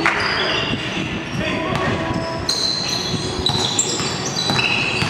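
A basketball being dribbled on the gym court, with many short high squeaks from sneakers on the floor and players' voices calling out.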